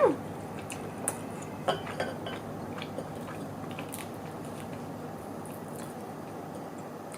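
Someone eating: quiet chewing with a few light clicks of cutlery against a dish, most of them in the first few seconds, over a steady background hum. A short pitched sound slides up and down right at the start.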